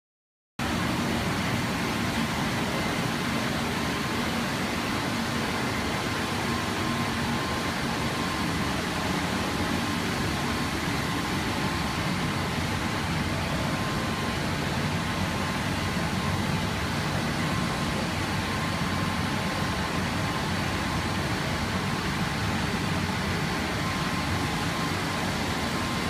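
Industrial microwave sterilizer running, with the steady whir of its cooling fans and a faint steady whine over it. The sound cuts in about half a second in.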